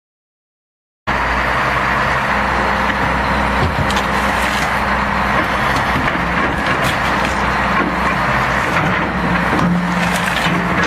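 An engine runs steadily while an excavator bucket presses down on a boat, with several sharp cracks and crunches as the boat's cabin is crushed. The sound starts abruptly about a second in.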